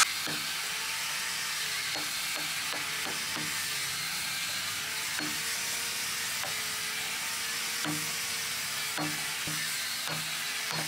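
Wood chisel cutting into a wooden rudder blank, pared by hand and struck with a claw hammer: irregular knocks in two spells, about two seconds in and again near the end, over a steady hiss.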